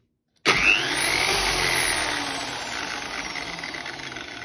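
Elitech МЩ 1412Э brush sander (burnishing machine) switched on, its motor and drum jumping to full speed almost instantly with a sudden loud start and a high whine: the advertised soft start is not working. The whine's pitch and loudness then slowly fall as the motor winds down.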